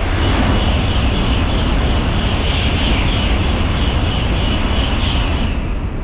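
N700-series Shinkansen bullet train passing through the station at high speed: a loud, steady rushing roar with a high hiss over it. The hiss fades about five and a half seconds in as the last car goes by.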